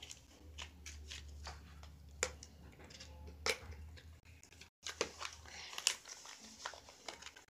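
Faint scattered clicks and soft squishes of slime being pressed and poked in a small plastic tub, over a low steady hum.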